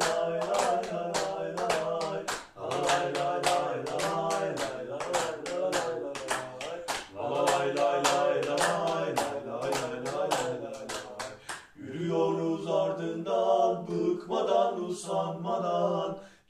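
Three men singing a football terrace chant in unison, wordless "la la" singing, with hand claps in time at about three a second. The clapping stops about twelve seconds in while the singing goes on.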